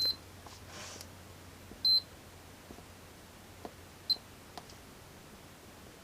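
A continuity tester beeping three times in short, high beeps, the third briefer, each time a tiny surface-mount micro switch on a key fob circuit board closes under a press, with faint clicks in between. The switch making contact shows it is working at this moment.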